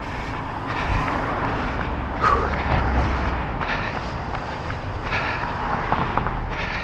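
Road traffic passing close by, one vehicle swelling louder from about one to three and a half seconds in, with a brief high squeak just over two seconds in.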